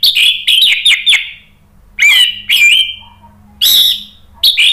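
Orange-headed thrush singing: loud, rapid runs of clear, pitch-bending notes in four short bursts with brief pauses between them.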